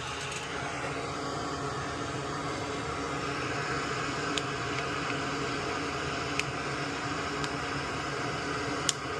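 Cutters snipping component leads on a circuit board: four small, sharp clicks spread over the second half, over a steady hiss of background noise.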